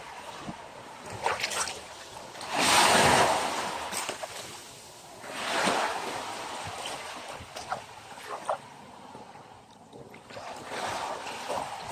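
Sea waves breaking and washing up on a beach, coming in three surges, the loudest about three seconds in, with a few short sharp clicks between them.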